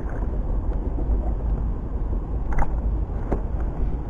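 Wind buffeting the microphone, a steady low rumble, with two short clicks in the second half.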